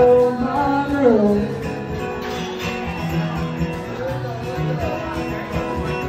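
Live pop music with guitar and a singer: the voice holds a note, slides down about a second in, then drops back under the strummed guitar.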